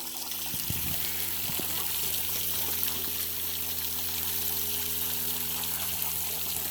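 Spring-fed waterfall rushing steadily, a continuous wash of falling water.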